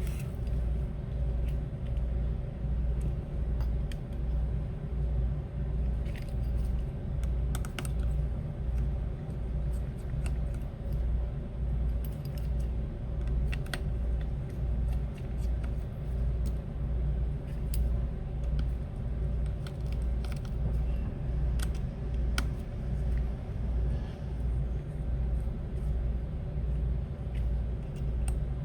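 Light clicks and taps of small metal repair tools being handled on a phone, over a low hum that pulses a little more than once a second.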